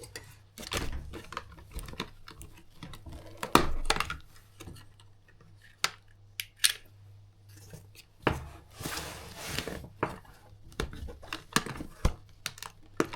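Irregular clicks, taps and metallic clatter of hand tools and small parts as a car steering wheel is dismantled on a workbench, with a denser rattling stretch about two-thirds of the way through, over a steady low hum.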